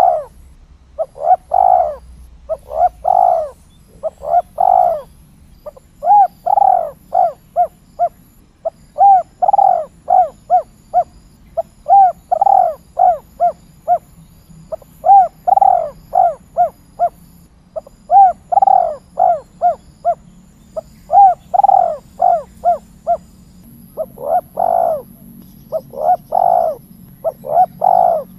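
Spotted dove (tekukur) cooing: a phrase about every three seconds, each a longer coo followed by several short, quick notes.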